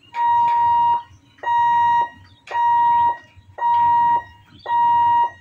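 Electric warning hooter of a railway level-crossing lifting barrier beeping five times at about one beep a second, each beep a steady high tone, sounding as the boom comes down to close the road.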